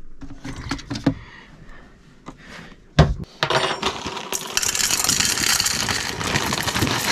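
Dry muesli poured from a plastic bag into a stainless steel bowl, a dense rattle of clusters hitting metal that starts about three and a half seconds in. Before it come light rustling and small knocks from rummaging in a cooler, and a single sharp knock about three seconds in.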